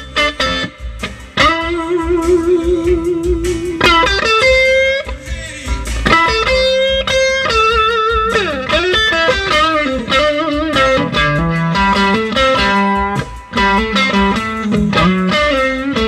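Electric guitar, a 1962 Fender Stratocaster, played through a 1960 Fender Tweed Bassman amp whose leaky Astron filter capacitor has just been replaced with a Mallory 150, giving what the owner hears as more defined notes. Single-note lead lines with held notes, vibrato and bends, moving to lower notes near the end.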